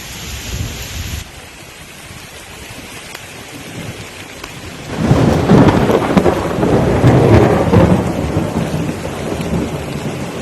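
Thunderstorm: steady heavy rain, with a long rolling rumble of thunder that starts about halfway through and lasts several seconds before easing off.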